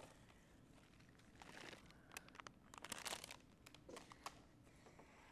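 Faint crinkling and crackling of a plastic snack bag being handled and emptied into a bowl, in a few short scattered rustles.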